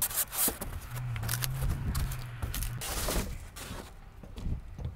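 Irregular scrapes and knocks of expanded polystyrene flute-fill insulation boards being pushed into the ribs of a corrugated metal roof. A low steady hum runs under it for about two seconds near the start.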